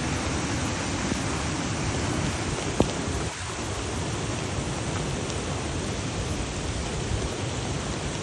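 Steady rushing noise of heavy rain and flash-flood water, with a single sharp click about three seconds in.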